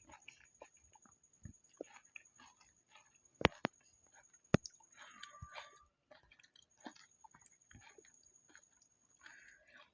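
Close-miked chewing of pani puri: soft irregular mouth clicks and crunching, with two sharp, much louder cracks about three and a half and four and a half seconds in, as the crisp puri shells break.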